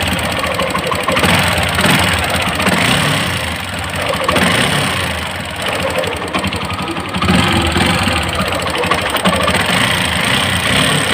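TVS Apache RTR 4V motorcycle's single-cylinder engine running with the abnormal engine noise the mechanic is demonstrating as its engine sound problem, on a bike he calls in very poor condition. The level swells and dips a few times.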